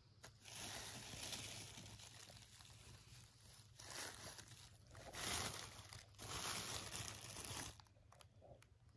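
Thin plastic bag crinkling and rustling under fingers picking through a heap of cut hair, in several louder bouts that stop shortly before the end.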